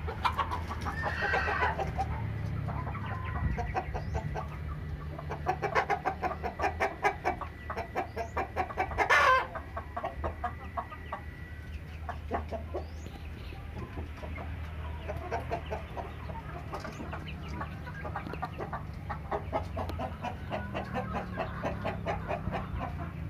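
A flock of chickens clucking continuously in quick runs of short calls, with one louder call about nine seconds in, over a steady low hum.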